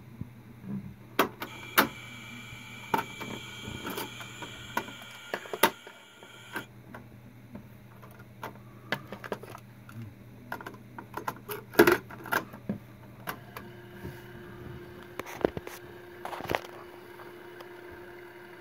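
Mechanical clicks and clunks from a JVC TD-W20 stereo double cassette deck as its transport buttons are pressed and a cassette door is opened, loaded and shut, over a faint steady hum.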